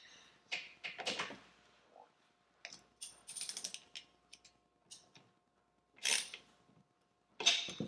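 Irregular clusters of short clicks and light metallic rattles as the Ender 3 Pro's bed carriage plate and its small hardware are handled and adjusted, with a sharper clatter near the end.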